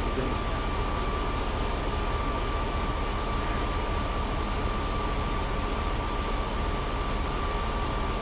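Pickup truck engine idling steadily under an open hood, with a steady high whine over the even running noise. The engine is being left to run to recharge the battery.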